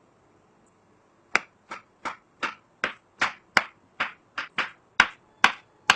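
Kitchen knife slicing peeled bananas into pieces: about a dozen short, sharp knocks of the blade hitting the surface beneath, roughly three a second, starting a little over a second in.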